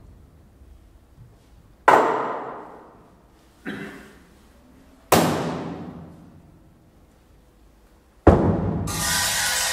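Single struck percussion hits, four of them a second or two apart, the second softer, each ringing out and dying away slowly. Near the end a bright metallic shimmer joins in.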